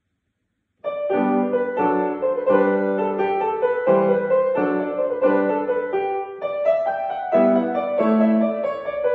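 Yamaha grand piano being played: a piece starts suddenly about a second in, with a melody over lower repeated notes.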